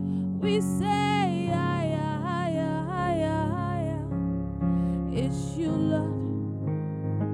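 Worship music: a keyboard holding sustained chords, the chords changing a few times, while a voice sings a long wavering melodic line for the first few seconds.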